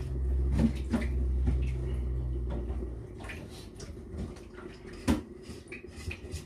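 Water running steadily, then cut off about three seconds in, followed by light knocks and clinks of kitchenware with one sharper knock about five seconds in.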